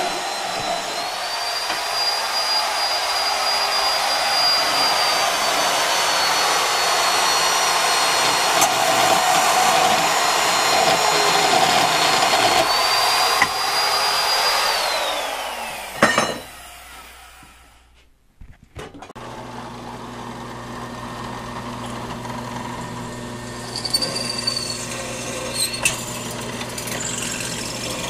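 A shop power tool runs loudly with a steady high whine for about fifteen seconds, then winds down with a falling whine. After a short gap a drill press motor hums steadily, more quietly, as its bit drills into steel square tubing.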